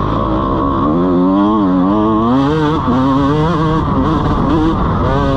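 125cc two-stroke motocross bike engine being ridden hard, its pitch rising and falling again and again as the throttle is opened and closed.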